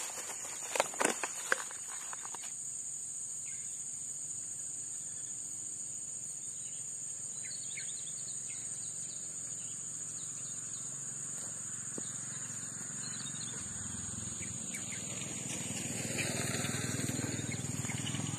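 Steady high-pitched drone of insects. A few sharp clicks in the first two seconds come from fishing tackle and bait being handled.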